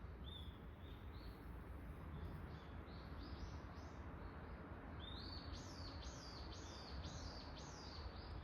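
Small songbirds calling: scattered short high chirps, then from about halfway a quick run of repeated high notes, about two a second. A steady low rumble runs underneath.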